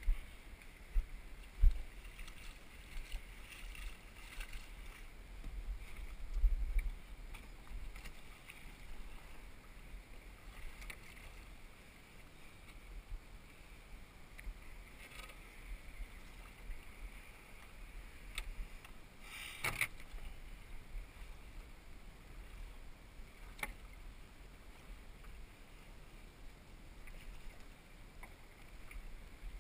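Sea kayak paddled through shallow water: paddle strokes splashing and water lapping at the hull. Occasional low thumps, and a sharp knock about two-thirds of the way through.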